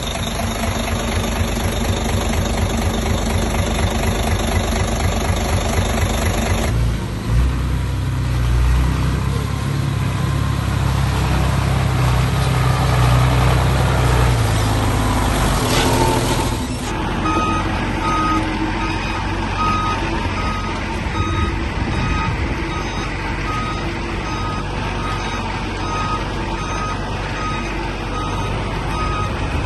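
Heavy diesel machinery running, with a strong low engine rumble that swells in the middle. About two-thirds of the way in, a dump truck's reversing alarm starts beeping steadily, about once a second, over the engine.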